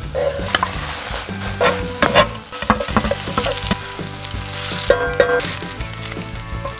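Fried rice sizzling in a hot cast-iron pan with dak-galbi sauce and chicken, stirred and pressed with a spatula that scrapes the pan bottom in short strokes. Soft background music plays underneath.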